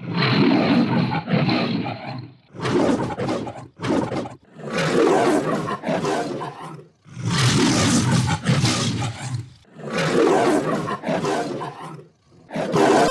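Recorded lion roar played as a string of digitally altered variations, about six roars in a row separated by short gaps. The first roar has a thin steady tone laid over it.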